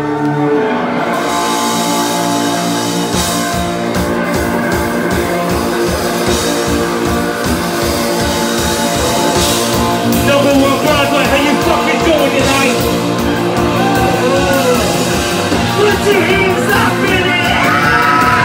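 Live amplified rock band playing, with electric guitar and bass guitar; a steady low beat comes in about three seconds in, and a singer's voice joins from about ten seconds in.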